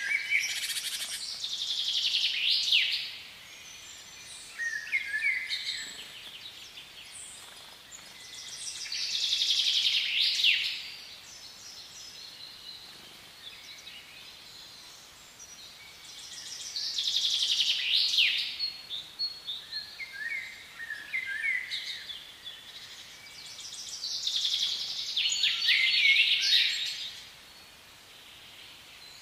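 A songbird singing: four high, rapid phrases about eight seconds apart, with shorter chirps between them, over a faint steady background noise.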